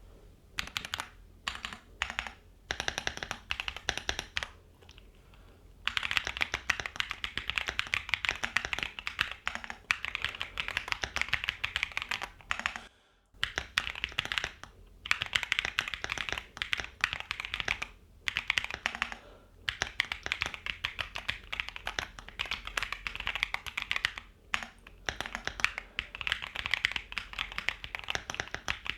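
Typing on a Keychron Q2 Max mechanical keyboard with Gateron Jupiter Banana tactile switches: fast runs of keystrokes in bursts, broken by short pauses.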